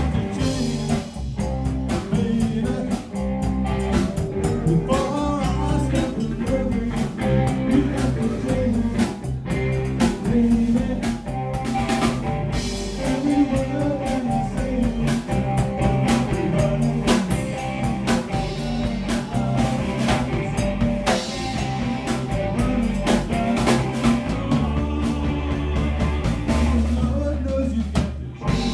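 Live rock band playing: electric bass, drum kit and electric guitar, loud and continuous.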